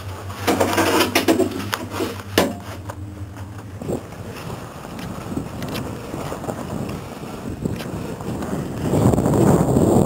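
Inside a moving gondola cabin: a steady low hum with a few sharp knocks and rattles. Then, about four seconds in, skis scraping over choppy, tracked snow, with a steady rush that gets louder near the end.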